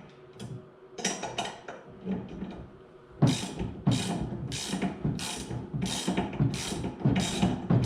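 Ratchet wrench working nylock nuts loose on bolts, a few separate clicks at first, then steady ratcheting strokes about two a second from around three seconds in.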